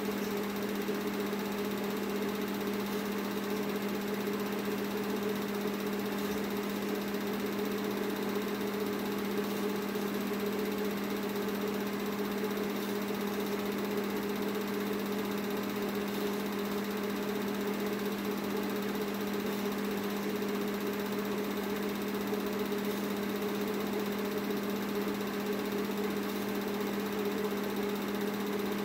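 Film projector running: a steady motor hum with an even mechanical whirr.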